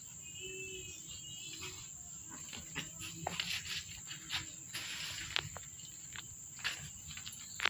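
A steady high-pitched insect drone, crickets or cicadas, with a short wavering chirp about half a second in. Scattered light taps and clicks in the second half.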